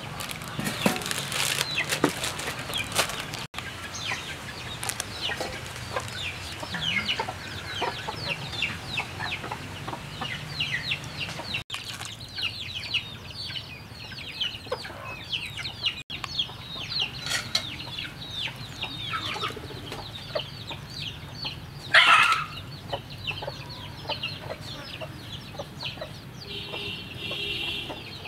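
Chickens clucking, with a steady run of short, high downward chirps and one louder call about three-quarters of the way through. A few knocks and splashes near the start come from rice paper being dipped in a steel bowl of water.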